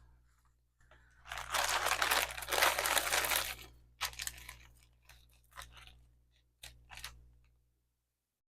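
Packaging crinkling and rustling as the next piece of jewelry is unwrapped: one long rustle of about two and a half seconds, then a few short crinkles.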